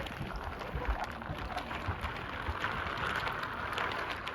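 Wooden toy train rolling along wooden track: a steady, dense rattle of wheels over the track with scattered low knocks.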